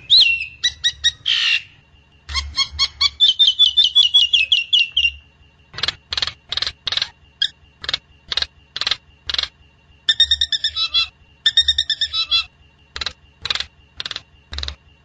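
Myna calling loudly: a fast run of repeated notes, then sharp single calls about twice a second, two clusters of chattering notes, and more single calls near the end. A faint steady high tone runs under the calls.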